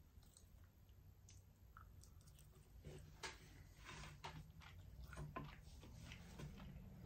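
A person chewing food with faint wet mouth sounds, heard as a scatter of small clicks that grow denser from about three seconds in.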